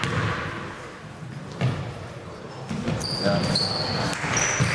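Basketball game sounds in a gym: a few thuds of a ball on the floor and short, high sneaker squeaks in the second half, over indistinct voices in a large echoing hall.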